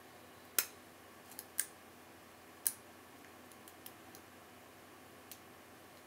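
Metal hook pick working the pin tumblers inside an Abus 55/45 brass padlock, giving off sharp metallic clicks: three louder ones in the first three seconds, then several fainter ones.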